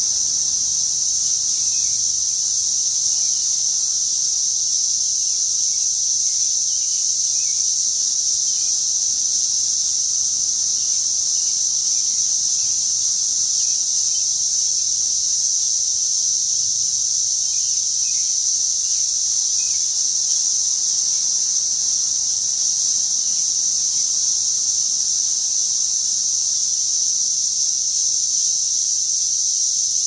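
Chorus of cicadas: a steady, unbroken high-pitched drone with no pauses or changes in loudness.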